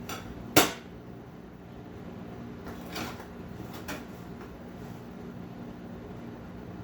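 A single sharp knock about half a second in, then two softer knocks around three and four seconds in, over a steady low hum.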